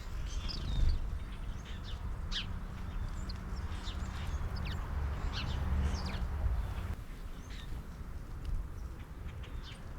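Small wild birds chirping with many short, sharp calls, over a low outdoor rumble that drops away about seven seconds in.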